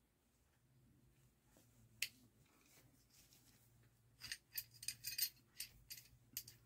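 Handling noise from a ferro-rod fire starter and its burlap drawstring pouch. There is a single sharp click about two seconds in, then a quick run of crisp, scratchy handling sounds over the last two and a half seconds.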